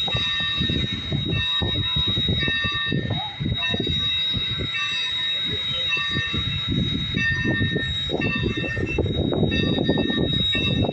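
Train rolling along the track: continuous low rumble with rapid clatter, overlaid by a steady high whine and short high ringing tones that repeat about once a second.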